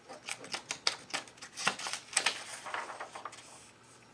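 Paper pages of an instruction booklet being turned over by hand, crackling and rustling in a quick run of sharp crinkles.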